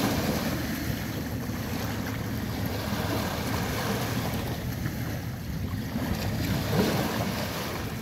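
Small sea waves washing in and breaking at the shoreline, with wind rumbling on the microphone.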